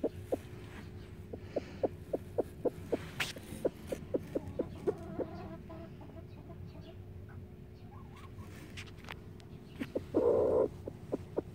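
Broody bantam hen on her nest giving a run of short, low clucks, several a second, that thin out partway through. A little after ten seconds in, just as a hand rests on her back, she gives a louder, rougher call lasting about half a second.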